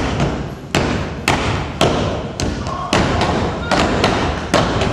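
Step team stepping in unison: sharp stomps and claps landing on a steady beat, about two hits a second, each echoing briefly in the hall.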